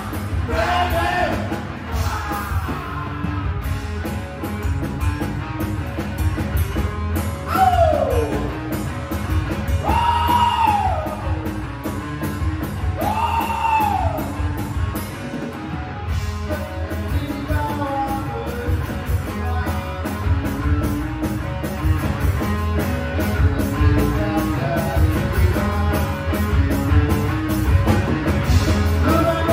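Live rock band playing: electric bass, guitar and drums with a steady beat, under sung and yelled vocals, including a few long held notes that rise and fall near the middle.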